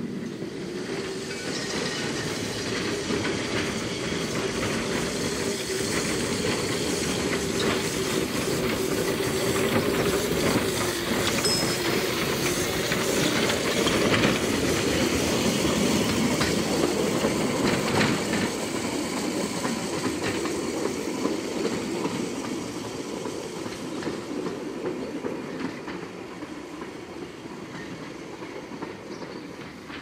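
Small motorised rail trolley passing on the track, its motor running and its wheels clattering over the rail joints. The sound grows louder to a peak around the middle, then fades as the trolley moves away.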